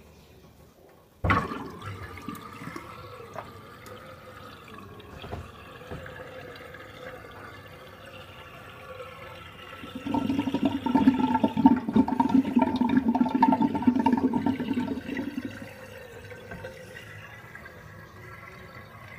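Water draining out of a stainless steel sink through the plughole. It starts suddenly about a second in, then gurgles loudly from about ten seconds in as the last of the water goes down, and settles again about five seconds later.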